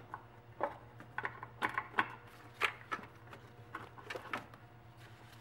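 A string of light, irregular clicks and knocks as the oil dipstick tube is worked free and drawn out past the engine-bay hoses, over a steady low hum.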